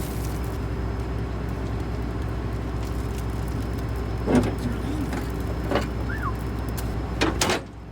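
An engine running steadily with a low drone, with a few brief knocks and a short falling squeak over it; the drone cuts off shortly before the end.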